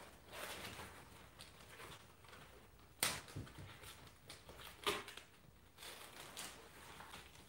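Faint rustling and handling of foam and plastic packing on a new e-bike's front fork, with a few sharp clicks or knocks, the loudest about three seconds in and another near five seconds.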